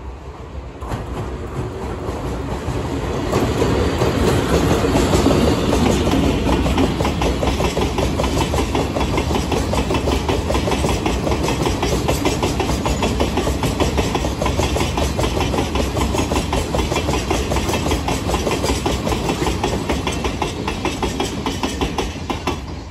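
Chichibu Railway Deki 100 class electric locomotive hauling a freight train of hopper wagons past at close range. The sound grows over the first few seconds as the locomotive draws level, then holds steady with rapid, regular clatter of wagon wheels over the rail joints, easing off near the end as the last wagons pass.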